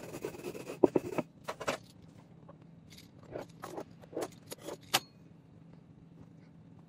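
Light clicks and knocks from handling a thin baklava dough sheet: a wooden rolling pin on a wooden board and the sheet being laid into a metal baking tray. The handling sounds stop about five seconds in, leaving a faint steady hum.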